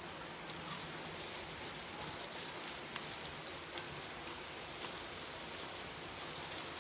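Close-up eating sounds: chewing of fried chicken and rice, with the light crinkle of a plastic food glove and scattered small clicks as fingers work rice and chicken on a plate.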